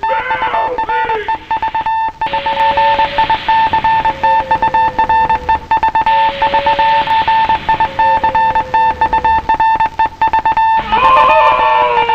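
Morse code beeping from the RKO Radio Pictures logo: a single high tone keyed on and off in quick dots and dashes over music, with two slowly falling lower tones and a hiss in the middle.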